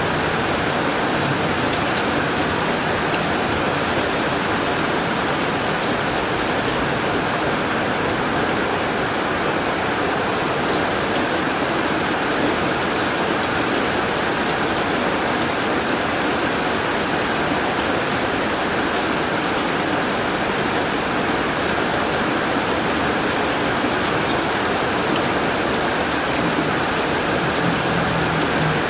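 Steady heavy rain drumming on a tin roof, a dense even patter with scattered sharper drop ticks.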